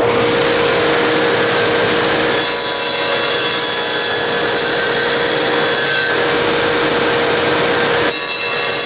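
Table saw with a stacked dado head running at speed and cutting a groove into wood; the sound of the cut changes several times as the board is fed across the blade.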